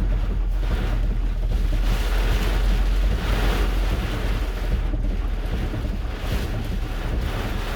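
Hurricane-force eyewall wind gusting, a loud rushing roar with a heavy low rumble, swelling in gusts a couple of seconds in and again near the end.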